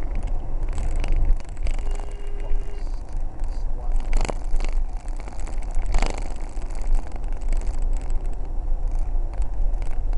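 Road noise heard from inside a car's cabin at motorway speed: a steady low rumble of engine and tyres on a wet surface, with a few sharp knocks about four and six seconds in.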